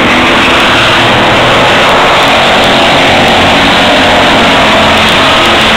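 A pack of stock cars racing past on a short oval, many engines running hard at once in a loud, steady roar.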